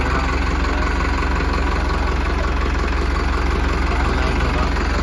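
Digitrac PP 46i tractor's diesel engine idling steadily.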